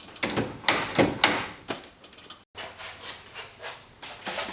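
A run of short knocks and clicks from hand work fitting the door handle on the truck's door, several in the first second and a half and a few more near the end.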